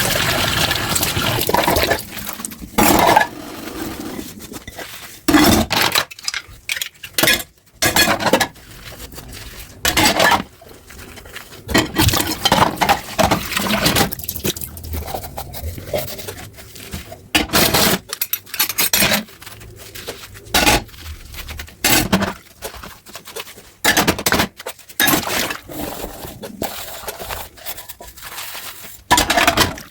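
Dishes being washed by hand in a sink: plates and cutlery clinking, knocking and scraping in irregular spurts, with running water at the start.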